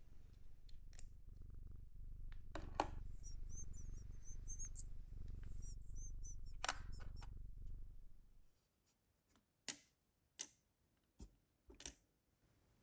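Small plastic miniature pieces clicking and tapping as they are handled and set down, with faint high squeaks in the middle. A low steady hum runs under the first eight seconds, and four sharp separate clicks come near the end as the tiny dishes are placed on the table.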